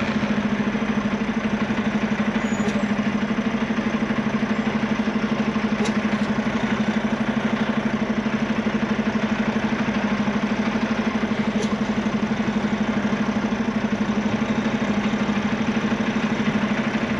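Kenworth semi-truck's diesel engine idling steadily, with an even, rapid pulse.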